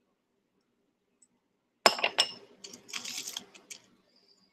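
Costume jewelry clinking and rattling as pieces are handled in a box: a sharp ringing clink about two seconds in, then a jumble of smaller clatters and clicks.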